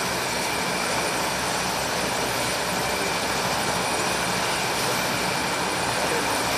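NH90 helicopter running, a steady rotor and turbine noise with a regular low beat from the rotor.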